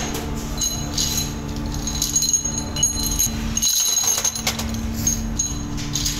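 Cast metal motorcycle brake shoes clinking and rattling against each other as they are handled and stacked, over a steady machine hum.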